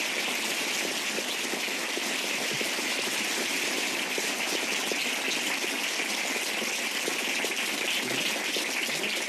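Audience applauding: steady, dense clapping at an even level.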